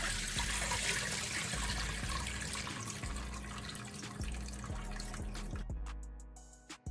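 Water from a kitchen faucet running and splashing into a glass bowl of shrimp in a stainless steel sink as they are rinsed by hand, then poured off into the sink. The water sound drops away and fades out near the end.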